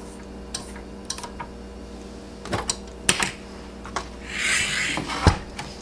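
Scattered light clicks and knocks of a hand handling an electric griddle and its cord, with a short rustling scrape about four and a half seconds in.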